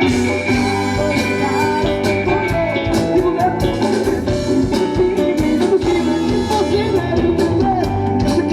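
Rock band playing an instrumental passage, with bass and drums coming in at the start under the higher melodic lines.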